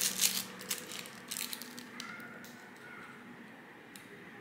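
Rustling and light clicks from decorating supplies being handled on a table, likely plastic piping bags and scissors, busiest in the first second and a half, then only faint handling noise.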